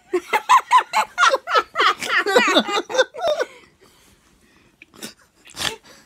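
Laughter and unclear voices for about three seconds, then a short quiet stretch broken by two brief noises near the end.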